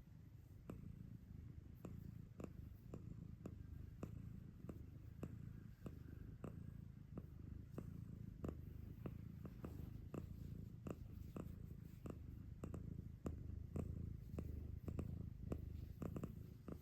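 A female cat purring steadily, a low continuous rumble, with frequent faint clicks scattered over it.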